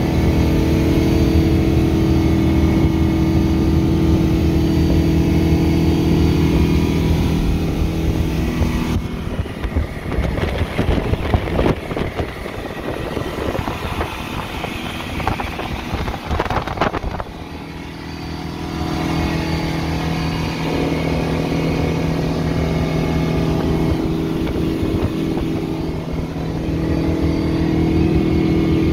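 Engine of a 2006 Ebbtide 2600 SL cuddy bowrider running steadily at high speed, near 5,000 rpm, with wind and water rushing past the hull. From about nine to about eighteen seconds in, the steady engine note is buried under the rush of wind and the churning wake, then comes back.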